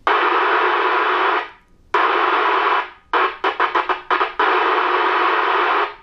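Hiss from the CRT SS9900 radio's speaker, with the squelch open, cutting in and out. It plays for about a second and a half, drops out, returns for about a second, stutters on and off rapidly, then runs steadily until it cuts off near the end. The dropouts come from the very loose speaker connector on the motherboard.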